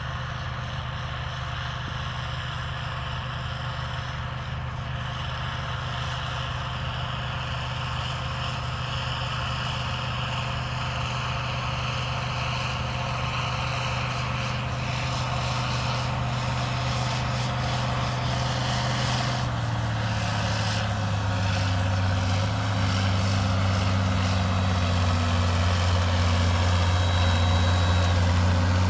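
International Harvester 5488 tractor's six-cylinder diesel engine running steadily under load as it pulls a strip-till bar and fertilizer commodity cart, growing louder as it comes closer. About two-thirds of the way through, the engine note drops to a lower pitch.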